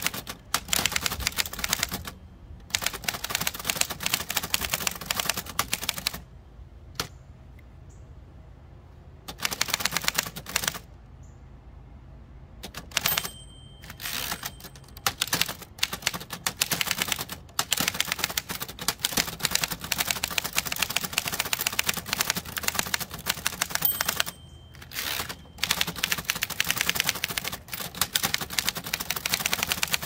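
Rapid typing on a 1925 Remington Model 2 portable typewriter: fast runs of sharp typebar strikes on the platen, broken by a few short pauses.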